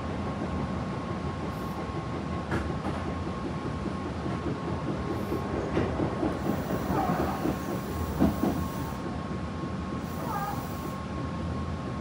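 Interior running noise of a Tobu 9050 series electric train, heard from its control trailer car, which has no motors: a steady rumble of wheels on rail with a thin steady high tone beneath. A few rail-joint clicks and short squeaks cut in, and the sharpest knock comes about eight seconds in.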